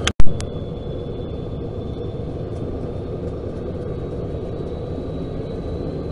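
A sharp click at the very start, then the steady low rumble of a Siemens Charger diesel-electric passenger locomotive running at a station platform, with a faint steady high whine over it.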